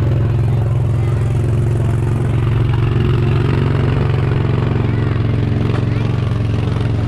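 Engine of the vehicle towing a barrel-car ride train, running steadily while the train rolls along: a constant low drone.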